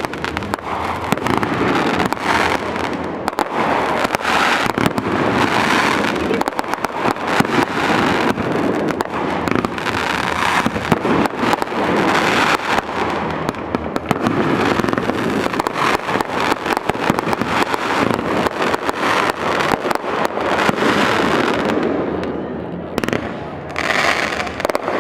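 Fireworks bursting and crackling in rapid, near-continuous succession, a dense barrage of sharp bangs and crackle that eases slightly near the end.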